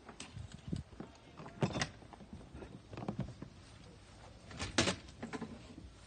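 A few irregular knocks and scuffs, with two louder ones near the middle and about five seconds in.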